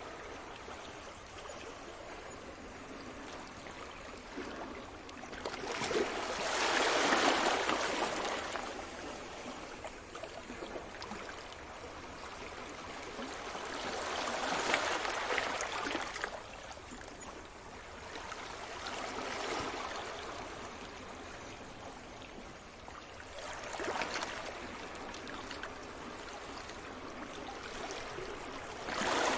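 Sea waves breaking and washing up on a beach, a swell of surf every five to eight seconds rising and falling over a steady hiss of water.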